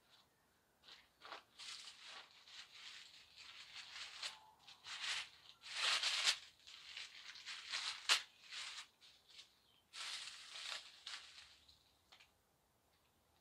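Dry leaf litter and dried grass clippings rustling and crackling as they are handled and spread by hand over a compost pile, in a series of uneven bursts starting about a second in and stopping near the end.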